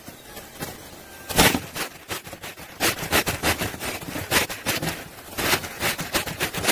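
Bee smoker's bellows being squeezed by hand, puffing air through the smoldering fuel in a string of short bursts, a few a second, the first and loudest about a second and a half in.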